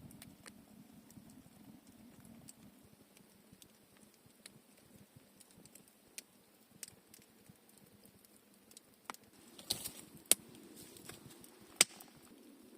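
Wood campfire crackling: scattered small pops and ticks, with a few sharper snaps near the end.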